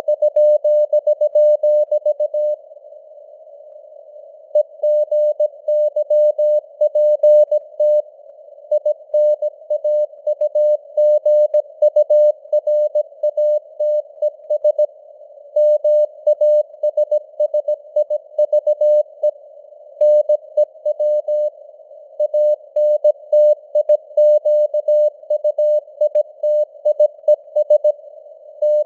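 Morse code (CW) sent at 17 words per minute as a single mid-pitched beep tone keyed on and off in dots and dashes, over a narrow band of hiss like a radio receiver's noise, with the signal's strength slightly fading up and down. A pause of about two seconds comes a few seconds in, between words.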